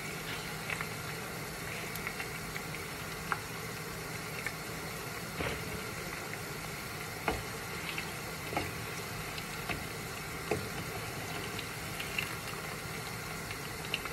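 Small green peppers frying in hot oil: a steady sizzle with irregular pops and crackles scattered through it.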